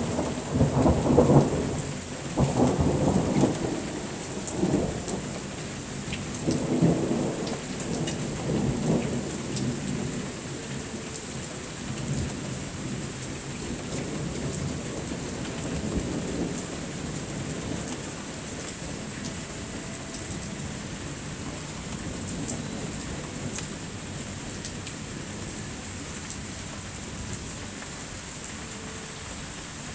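Thunder rumbling in several loud peaks over the first ten seconds or so, then fading away under the steady hiss of falling rain.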